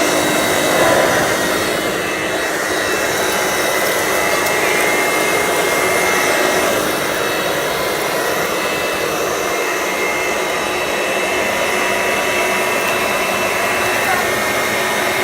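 Hoover model 450 upright vacuum cleaner running steadily on carpet: a constant motor whine over rushing air. Its beater-bar brushes are worn down, so it sweeps only part of its width.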